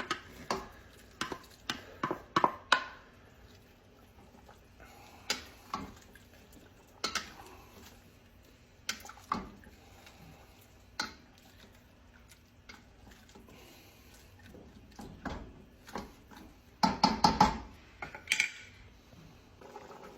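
Cooking utensils clinking and knocking against a pot, in scattered single strikes, with a quick flurry of louder knocks near the end.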